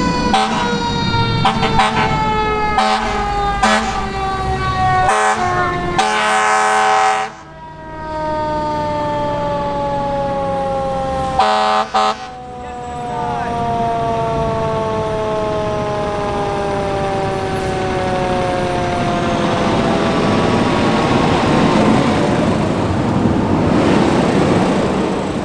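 San Jose Fire Department engine passing on a code 3 run, its siren winding slowly down in a long falling wail. Several short air-horn blasts sound in the first few seconds, a longer blast about six seconds in and another near twelve seconds. The truck's engine and road noise carry on after the siren fades.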